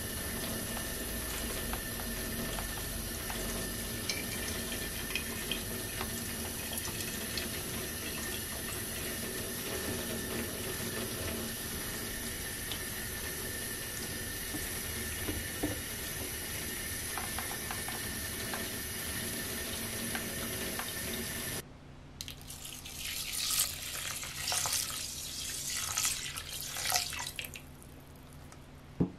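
Hot water running steadily over aburaage fried tofu in a bamboo colander in a sink, rinsing off the surface oil. It stops suddenly about three-quarters of the way through, and irregular splashing follows as water is poured into a rice cooker's inner pot of rice.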